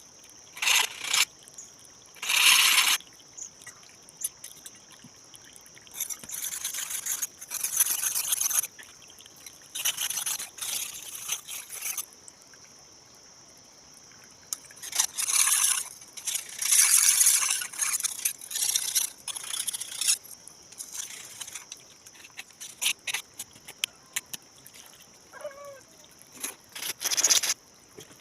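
Irregular scraping and rubbing strokes on an old rusted khukuri blade as the rust is worked off, coming in bursts of a second or two with short pauses between.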